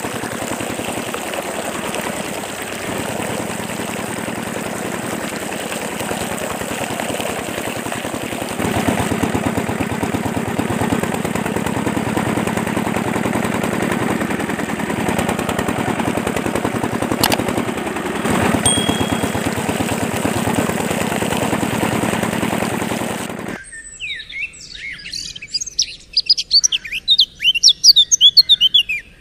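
A miniature model water pump's small engine-style motor running steadily with a fast, even chugging, water splashing from its outlet pipe. About 23 seconds in it cuts off abruptly and small birds chirp rapidly and loudly.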